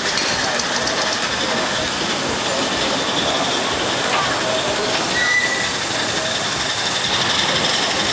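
Miniature live-steam locomotives hissing steadily as they stand in steam, with a short high tone about five seconds in.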